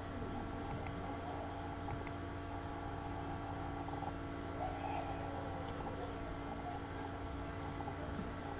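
Steady electrical hum made of several fixed tones, the background noise of the recording setup, with a couple of faint clicks about one and two seconds in.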